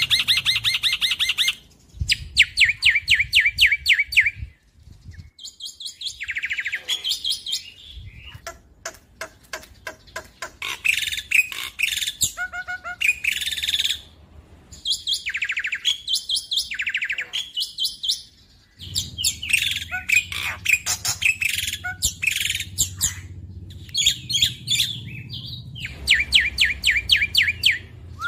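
Black-winged myna singing in bursts: fast runs of repeated sharp notes and trills, each a second or two long, with short pauses between them.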